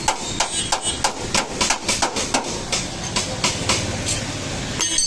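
Hammer blows on the bent steel front end of an accident-damaged Mahindra Scorpio, a quick run of sharp strikes at about four a second: dent-straightening work on the crash-damaged body.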